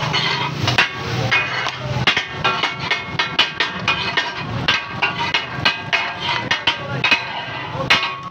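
Metal spatula clanging and scraping on a hot steel tawa griddle, with an irregular run of sharp, ringing metal strikes, several a second, as fried fish katakat is chopped and scooped against the griddle and a steel bowl.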